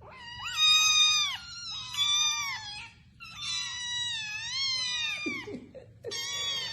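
Domestic cat meowing about four times in long, drawn-out meows that rise and then fall in pitch. The owner answers as though the cat is asking for dinner.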